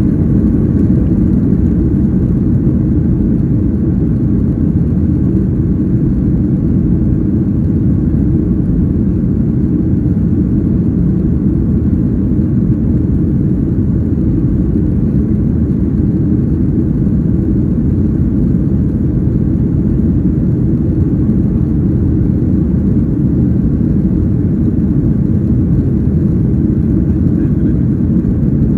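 Jet airliner cabin noise: the steady, loud low rumble of the engines and rushing air heard from a window seat in flight.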